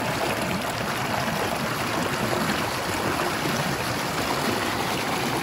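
Steady rush of flowing water, an even continuous gush.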